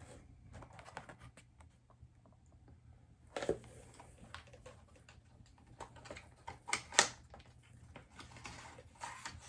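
A small product package being handled and opened by hand: scattered light clicks and crinkles, with sharper snaps about three and a half and seven seconds in.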